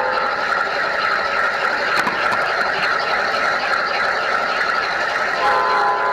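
G scale model train rolling along the track, a steady running noise of wheels on rail recorded from on board. A whine fades out just after the start and returns near the end, with one sharp click about two seconds in.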